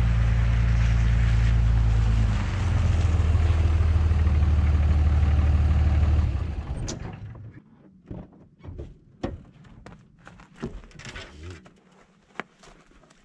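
Cummins 5.9-litre inline-six turbo diesel of a 2003 Dodge Ram 2500 pickup running as the plow truck drives up and pulls in, its note shifting a little over two seconds in. The engine sound cuts off abruptly about seven seconds in, leaving faint scattered clicks and knocks.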